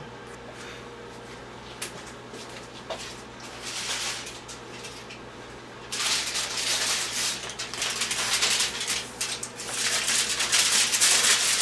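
A few faint clicks, then, about six seconds in, aluminium foil crinkling and rustling as a sheet is pulled out and pressed over a glass baking dish.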